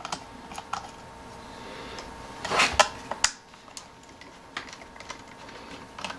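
Screwdriver clicking and scraping on the Phillips screws of a sheet-metal power supply case as the screws are backed out and the case is handled, with light metallic clinks; a louder cluster of knocks comes about two and a half seconds in.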